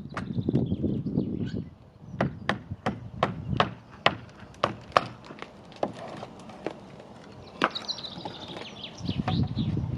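Repeated sharp knocks of a hammer on timber, irregular at roughly two or three a second, as plywood formwork is knocked off a cast concrete arch lintel. A low rumble comes in the first second or so and again near the end.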